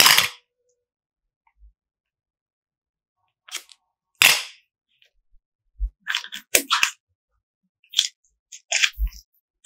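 Short crackling pops from a small plastic tub of blue clay as it is opened and the clay is pulled out, then a cluster of sticky crackling pops as the clay is pulled and stretched. The pops come in separate groups with silence between them.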